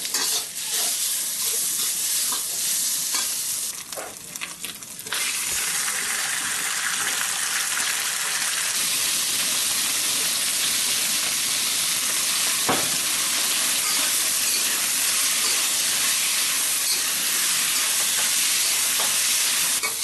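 Meat stir-frying in a hot iron wok: a loud, steady sizzle that dips for a moment about four seconds in, then comes back louder and holds.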